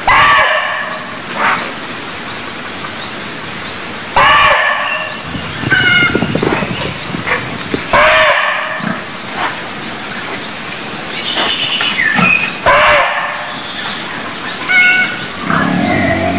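Barking deer (muntjac) calls: four loud barks about four seconds apart, each a short cry. Behind them runs a steady, rapid chirping of insects, with a few bird whistles between the barks.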